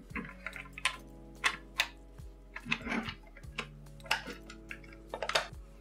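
Irregular clicks and taps of 3D-printed plastic puzzle parts being pushed, slid and handled.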